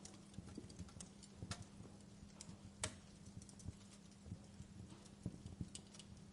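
Wood fire crackling faintly in a fireplace, with irregular small pops and snaps, the sharpest about three seconds in, over a faint steady low hum.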